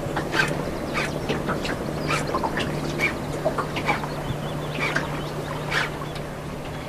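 Birds calling in short, irregular cries over the steady low hum of the boat's engine idling.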